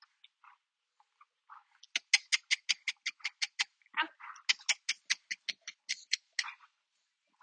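A dog making a fast, evenly spaced run of short sharp sounds, about six a second, starting about two seconds in and briefly breaking off midway.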